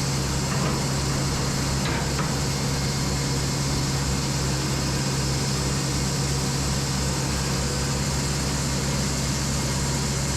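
Echo 45HD2 band sawmill and its machinery running: a steady drone with a strong low hum. A couple of faint knocks come about half a second and two seconds in.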